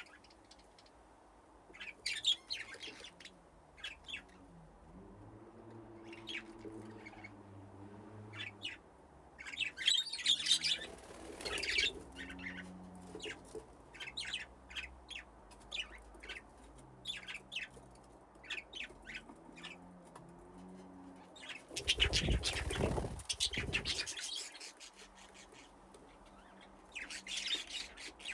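Budgerigars chirping and chattering in short high calls, in denser flurries now and then. Near the end a louder rushing noise lasts about two seconds.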